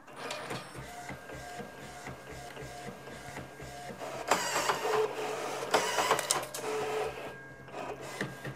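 Primera IP60 inkjet photo printer starting up and printing a test print: motors whirring with repeated clicks. It grows louder about halfway through, with a few stronger passes.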